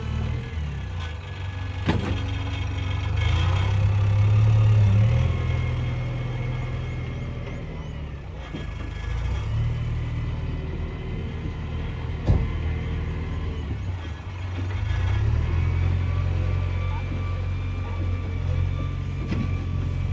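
Heavy diesel engine running, revving up and easing off a few times, with sharp knocks about two seconds in and again about twelve seconds in.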